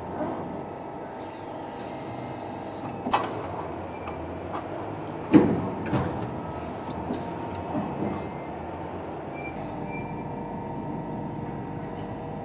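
Upstroke press brake running with a steady hum, with sharp metal clanks as sheet-metal workpieces are handled against the bending tools; the loudest clank comes about five seconds in, with a smaller one about three seconds in and lighter knocks later.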